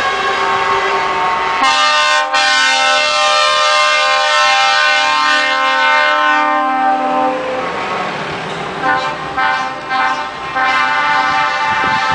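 Diesel trucks passing in convoy, and a truck's air horn sounding one long multi-note blast for about five seconds that cuts off suddenly, followed by a few short horn toots near the end.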